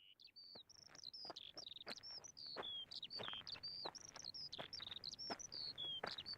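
Birds chirping faintly: a continuous stream of short, high chirps and little sweeping notes, several a second.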